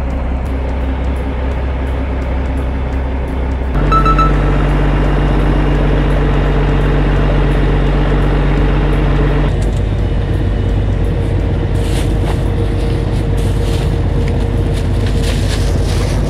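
Fishing boat's engine running with a steady low hum, stepping up louder about four seconds in as the boat heads back under way. Near the end there is a light crinkling, as of a plastic bag being handled.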